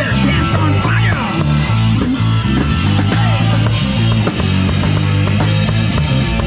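Live rock band playing: electric guitars over a drum kit, with a steady beat and a repeating low bass line.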